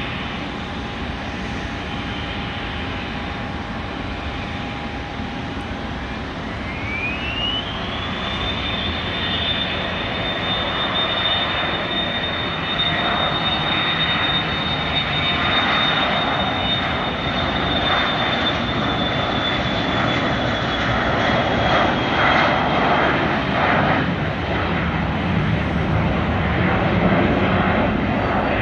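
Dassault Falcon 2000EX business jet's twin Pratt & Whitney Canada PW308C turbofans at takeoff power. A steady engine whine rises sharply in pitch about six seconds in as the engines spool up, then holds high and steady while the broad engine noise grows louder through the takeoff roll and climb-out.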